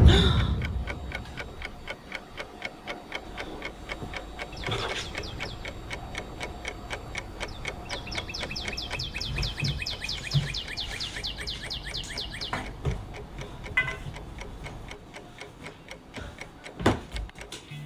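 A clock ticking steadily and quickly, opening on a heavy thud that fades. For about four seconds in the middle, a fast run of high, rapidly repeated chirps sounds over the ticking.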